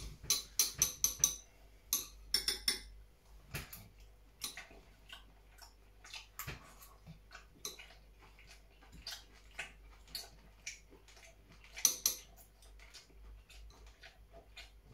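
Metal chopsticks clicking and scraping against a bowl while someone eats stir fry: irregular light taps, busier in the first second or so, again around two and a half seconds in and near twelve seconds in.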